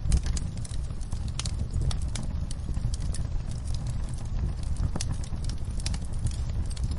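Wood fire burning in a fireplace: logs crackling and popping in quick, irregular snaps over a steady low rumble of the flames.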